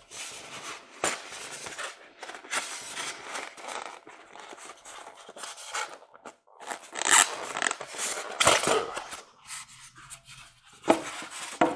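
Styrofoam packing rubbing and scraping as a model train car is worked out of its tight-fitting insert, with a few louder scrapes in the second half.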